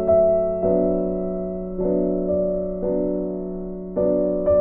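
Background piano music: slow chords struck about once a second, each one fading away.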